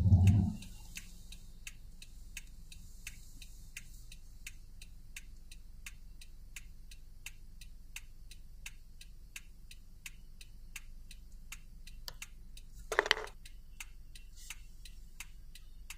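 Car turn-signal indicator ticking steadily, about two to three clicks a second, over a faint low hum inside a car waiting at a red left-turn arrow. A short louder sound cuts in briefly about thirteen seconds in.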